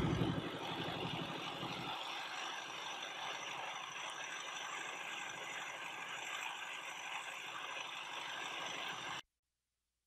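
Wooden river fishing boat under way: a steady rush of water along the hull mixed with the boat's engine running. It cuts off suddenly near the end.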